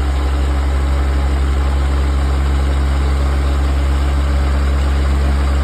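ARNO double-spindle milling machine's electric drive running with a loud, steady low hum.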